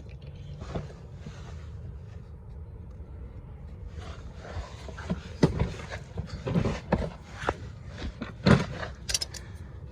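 Knocks, clicks and scrapes of oil-change parts and tools being handled, starting about four seconds in, with the sharpest knocks near the middle and near the end, over a steady low hum.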